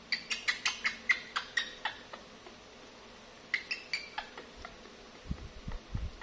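Young macaque monkey squeaking in quick short chirps, about a dozen in the first two seconds and a few more midway, followed by several low thuds near the end.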